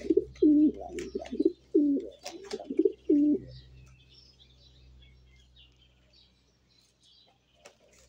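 Bird calls: a quick run of short, low calls, each falling in pitch, about two a second, which stop after about three and a half seconds, leaving a faint low hum.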